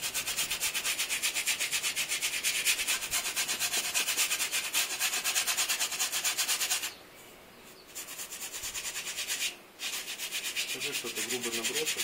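Paintbrush scrubbing oil paint onto a stretched canvas in fast, even back-and-forth strokes, bristles rasping on the canvas. The strokes pause for about a second some seven seconds in, then stop again briefly before starting up.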